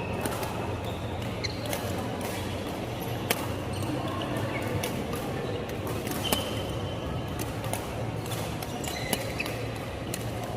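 Badminton rally in a hall: sharp racket hits on the shuttlecock every second or two, with short squeaks of court shoes on the floor over a steady hall hum.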